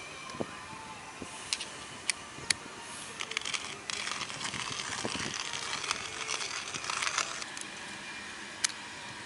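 Small metal camping-stove parts clicking and clinking as they are handled and fitted together by hand: a few single sharp clicks, then a longer run of rattling clicks in the middle, over a steady background hiss.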